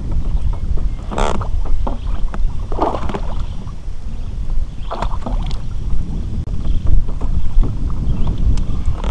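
Wind buffeting the microphone aboard a kayak, a steady low rumble. Three short noisy bursts of handling or water noise come about 1, 3 and 5 seconds in.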